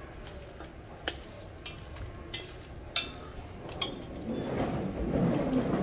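Chunks of raw pork leg being stirred in a stainless steel pot with a wooden utensil: the wet meat shifts and rustles, and the utensil knocks sharply against the pot about four times.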